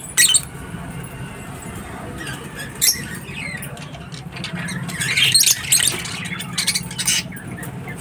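Rosy-faced lovebirds chattering in scattered bursts of sharp, high-pitched squeaks and chirps, busiest about five seconds in, over a steady low hum.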